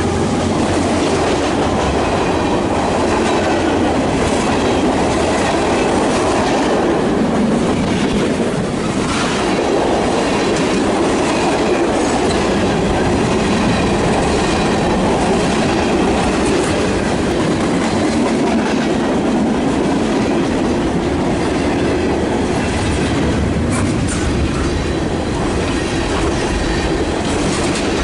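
Mixed freight cars of a Union Pacific train (flatcar, covered hoppers, refrigerator car, gondolas) rolling past close by: a steady loud rumble and clickety-clack of steel wheels over the rail joints, with faint wheel squeal at times.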